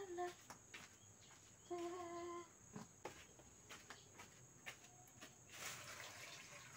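A woman humming quietly to herself in two short phrases, the second a single held note about two seconds in. Faint knocks of things being handled follow, then a brief swish of water scooped from a plastic bucket near the end.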